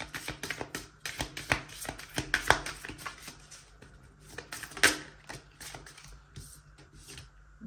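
A deck of Moonology Manifestation oracle cards being shuffled by hand: a quick run of papery flicks and clicks, with one louder snap about five seconds in as the cards are handled.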